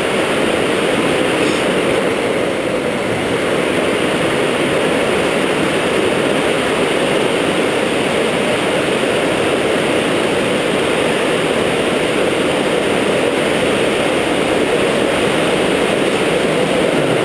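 Waterfall: a loud, steady rush of falling water, with no change in level.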